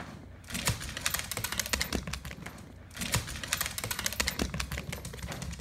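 Small dog (Yorkshire terrier) crunching dry kibble: dense rapid crunching clicks in two runs, with a short break about three seconds in.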